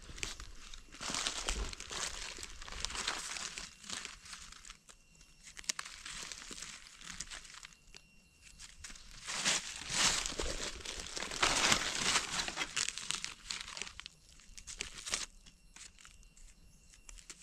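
Dry fallen leaves crackling and rustling under gloved hands digging a mushroom out of the leaf litter. The sound is louder in two spells, one soon after the start and one about ten seconds in.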